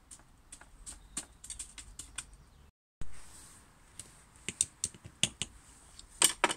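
Irregular small clicks and crackles of loose bird seed as a lard-packed pine cone is pressed and rolled in it on a tray. The sound cuts out briefly about three seconds in, and the clicks are loudest near the end.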